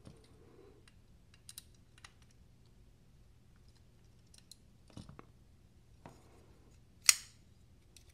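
Scattered small metallic clicks and taps from a McNees Mac 2 folding knife being handled after its pivot was refitted with thick washers, with one sharp, louder snap about seven seconds in.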